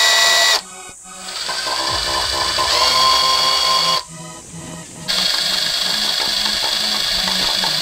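Makita electric drill driving a drill-powered mini pump (Niigata Seiki RDP-01), pumping gear oil through a hose into a Nissan 350Z's manual transmission. The motor whines in three spells. It stops about half a second in, winds back up rising in pitch, stops again around four seconds, then runs steadily to the end.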